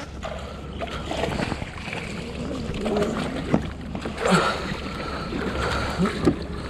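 A hooked largemouth bass splashing and thrashing in the water beside a kayak during the fight, with irregular splashes and water sloshing.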